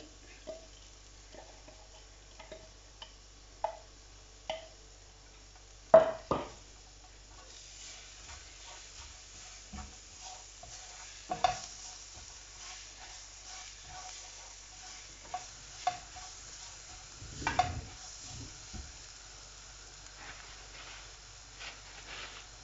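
Chopped garlic frying in a nonstick pan with a faint, steady sizzle while it is stirred and scraped with a silicone spatula, with small ticks throughout. A few sharp utensil knocks stand out, the loudest about six seconds in and others around eleven and seventeen seconds.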